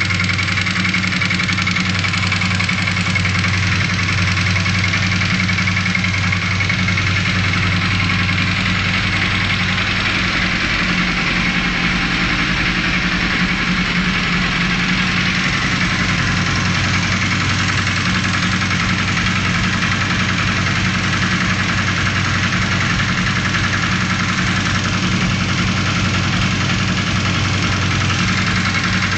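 Honda CB450 motorcycle's parallel-twin engine idling steadily, carrying a strange noise that the owner is trying to trace.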